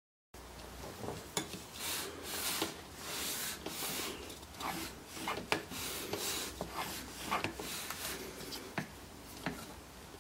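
Wooden drill-stand jig being slid and tilted by hand: wood-on-wood rubbing and scraping swishes with scattered sharp clicks and knocks. The rotary tool's motor is not running.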